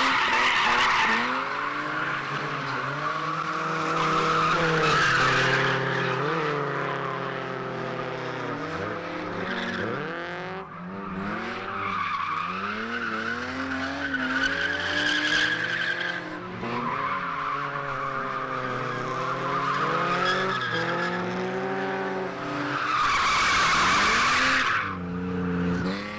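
BMW E36 Compact drifting: its engine revs rise and fall through the corners while the rear tyres squeal and skid in long spells, loudest near the end.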